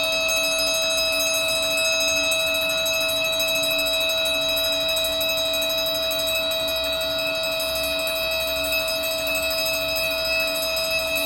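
Fire suppression system alarm panel sounding a continuous electronic alarm tone during a system test: a steady, unbroken note made of several pitches at once.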